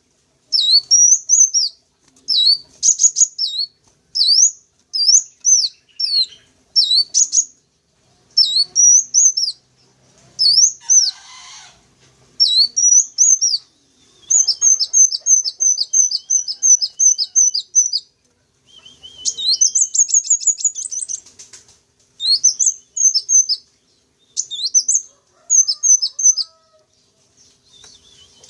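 Sunbird song used as a bird-lure call: short, high, sweeping chirp phrases repeated every second or two, with a quick trill of repeated notes about halfway through.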